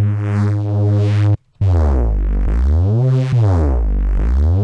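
Neuro drum-and-bass bass patch on the Phase Plant software synth, built from sawtooth and sine oscillators. One held note cuts off about a second and a half in. After a short gap comes a continuous bass line that glides smoothly up and down in pitch between notes (mono, with glide), its tone shifting under a moving filter.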